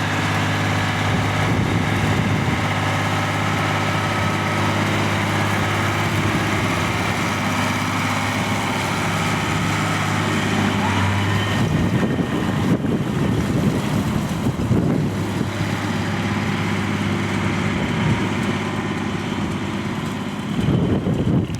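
Tractor diesel engine running with a steady hum, which turns rougher and more uneven about halfway through. The sound cuts off abruptly at the end.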